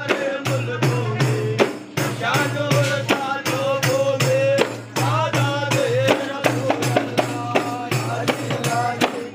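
Hand-held frame drums (daf) beaten in a steady rhythm of about three strokes a second, under a group of men's voices singing one melody together.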